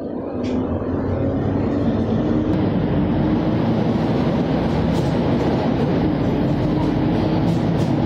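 Rea Vaya bus engine heard from inside the cabin as the bus pulls away from the station, growing louder and rising in pitch over the first couple of seconds, then running steadily. A few short rattles are heard in the second half.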